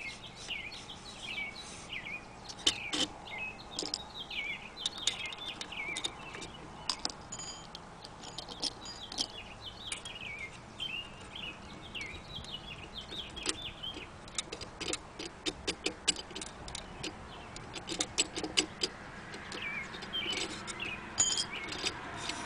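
Small birds chirping and singing over and over, with scattered sharp clicks and light knocks of metal sharpener parts being handled.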